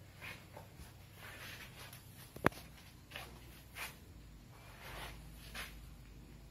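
Faint rustling and shuffling noises, with one sharp click about two and a half seconds in.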